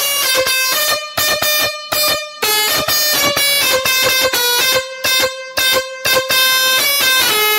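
Six-trumpet electric musical horn set (a 'hexa bugle' horn) playing a tune from its controller box: a quick run of blaring horn notes stepping up and down in pitch, broken by a few short pauses.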